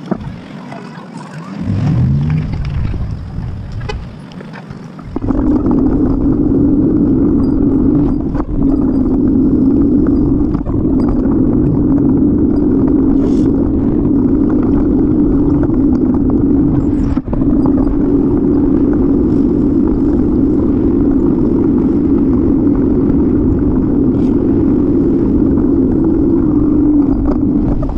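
Steady low noise of a moving bicycle ride on the camera's microphone, wind and road noise, getting louder and staying even from about five seconds in.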